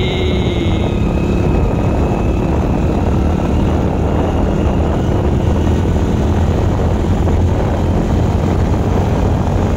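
Steady vehicle noise from riding along a road: a constant low engine drone mixed with wind rushing over the microphone.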